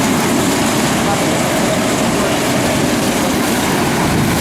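Several mini wedge race cars' small engines running at speed around a dirt oval, a steady dense engine noise with a faint wavering drone.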